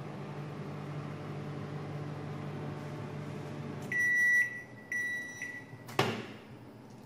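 Samsung MS23K3513AW microwave oven running with a steady hum for its last few seconds, then stopping and sounding two high beeps as the cycle ends. About a second later the door latch clicks sharply as the door is pulled open.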